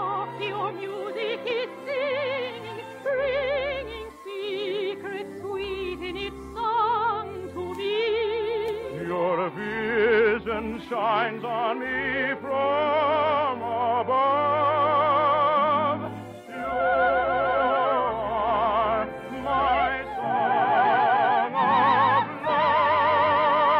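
Operatic singing with wide vibrato over orchestral accompaniment, a romantic song from a 1940s radio operetta. The sound is narrow and dull, with the limited treble of an old broadcast recording.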